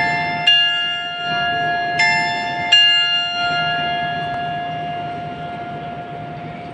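Taipei Main Station's on-time train chime: four bell-like tones struck in two pairs, each ringing on and fading slowly, over a low steady hum.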